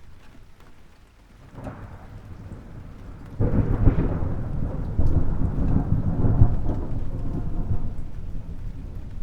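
Thunderstorm: steady rain with thunder. A lighter rumble builds about a second and a half in, then a loud deep thunderclap breaks suddenly a little past three seconds, surges again about five seconds in and rolls on, slowly fading.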